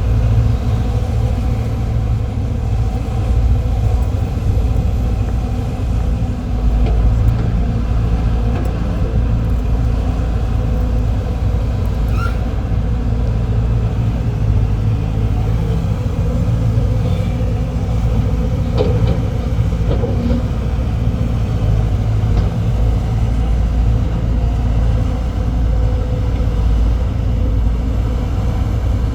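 Diesel engines of four-cylinder hydraulic excavators running steadily as the machines work, a deep continuous rumble, with a few faint short higher sounds in the middle.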